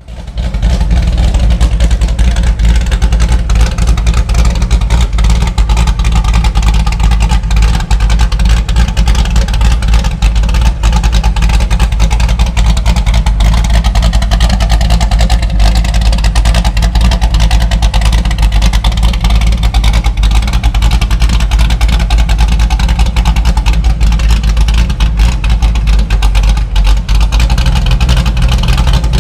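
De Tomaso Pantera's V8 engine running with a loud, steady low rumble.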